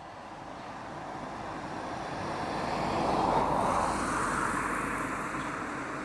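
A rushing noise that swells to its loudest about three seconds in and then fades, like a vehicle passing by.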